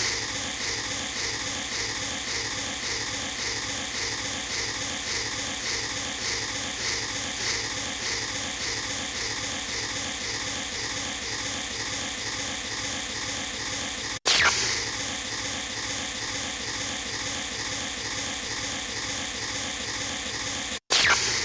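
Synthesized lightsaber-style hum: a steady, hissy drone. It cuts out for an instant about 14 seconds in and again near the end, and each time restarts with a short, louder swoop that falls in pitch.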